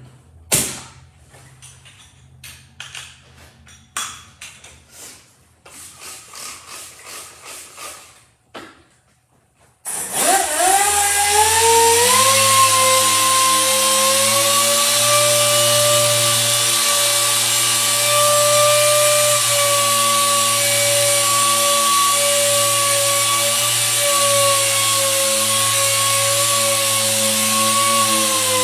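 Small air-powered orbital sander with a 3000-grit disc sanding the clear coat of a repainted car fender. After some clicks and handling knocks, the sander starts about ten seconds in, winds up over a couple of seconds, and runs with a steady whine and a hiss of air. It stops right at the end.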